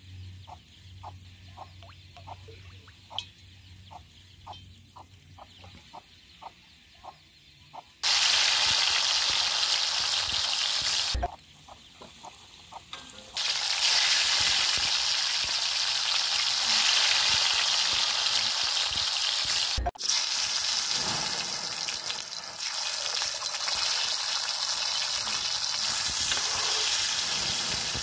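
Hot oil in an iron wok sizzling loudly as balls of dough deep-fry. The sizzle starts suddenly about eight seconds in, after a quiet stretch, and dips briefly twice.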